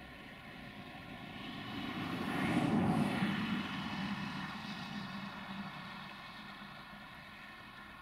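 Tipper truck's diesel engine running steadily as it tips a load of earth, with a vehicle passing close by that swells to loudest about three seconds in and then fades away.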